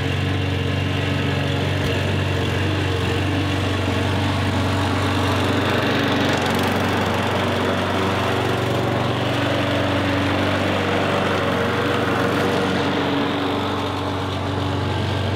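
Lawn mower's small petrol engine running steadily, a continuous low hum with a slight swell about halfway through and a small dip near the end.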